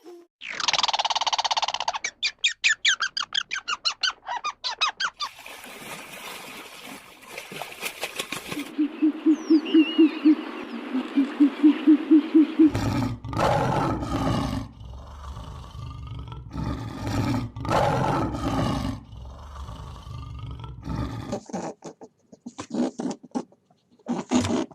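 A run of different recorded animal calls, one after another, changing every few seconds: a loud call, fast repeated pulses, a rapid low croaking pulse, then loud deep calls.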